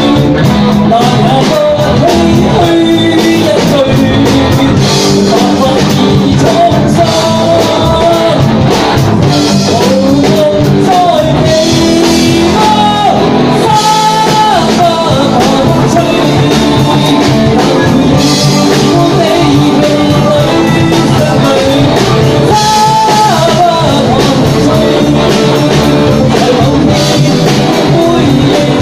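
Live rock band playing a Cantonese ballad: a man singing into a microphone over electric guitar, electric bass and a drum kit.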